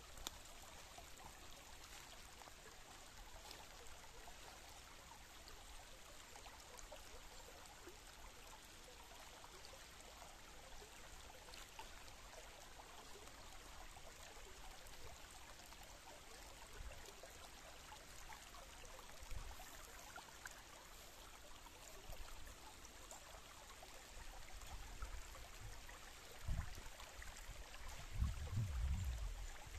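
Shallow woodland stream trickling and babbling over stones and leaf litter, a steady soft rush of water. Near the end come a few low rumbling bumps.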